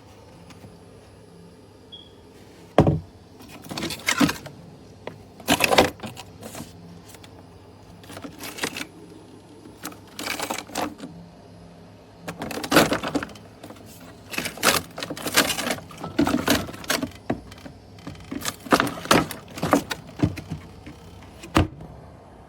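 Irregular clicks, knocks and rattles of hard objects being handled, in quick clusters with short gaps, over a faint steady low hum.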